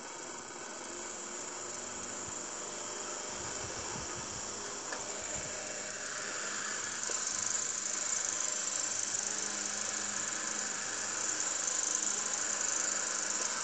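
Electric pedestal fan running, a steady whirring hiss of the motor and blades that grows louder about six seconds in.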